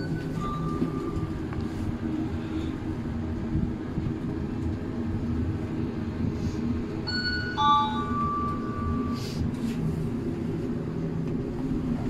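Hitachi YPVF lift car travelling between floors, with a steady low hum and rumble of the ride. There is a short electronic beep about half a second in, and an electronic chime of several notes around eight seconds in, signalling arrival at a floor.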